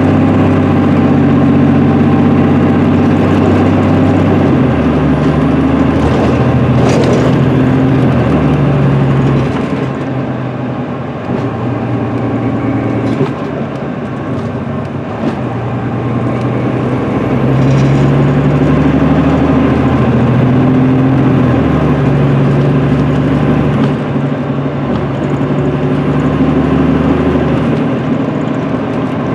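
Cummins ISM diesel engine of an MCI D4500CL coach heard from inside the passenger cabin, running under way. The engine note shifts in pitch and loudness, easing off near the middle and pulling harder again after about 17 seconds. A thin high whine comes and goes above it.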